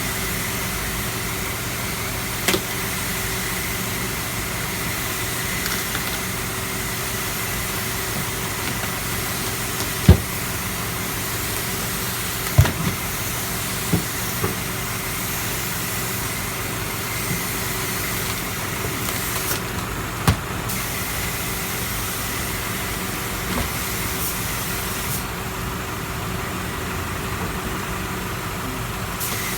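A steady engine-like drone with a constant hum, broken by a handful of short, sharp knocks and cracks as the rotten wooden floorboards of a truck's cargo bed are broken up and pulled away.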